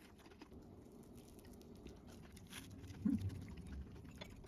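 Faint eating sounds: quiet chewing with small scattered clicks, and a short low hum about three seconds in.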